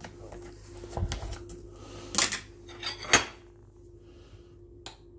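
Plastic margarine tub being opened and handled on a kitchen bench: a few separate clicks and knocks of the plastic lid and tub, the sharpest a little after three seconds in.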